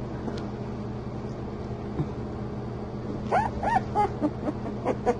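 English Bull Terrier puppy, a little over two weeks old, giving a quick run of short squeaky whimpers about three seconds in, each rising and falling in pitch.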